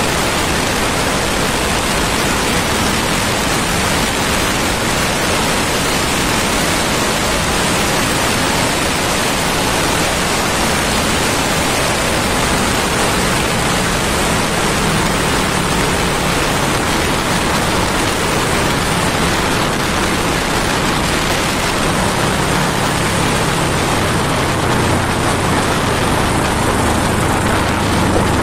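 Steady loud wind rush on the microphone of a motorcycle riding at speed, with a faint engine drone underneath that comes through more from about halfway in.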